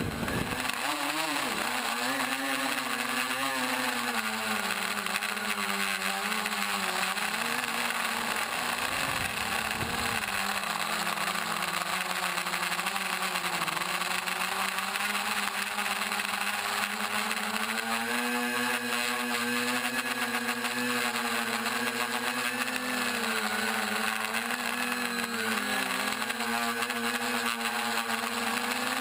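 Quadcopter's four 950 kV brushless motors and propellers whining, the pitch rising and falling with throttle through acro manoeuvres. It drops sharply and climbs back just after the start.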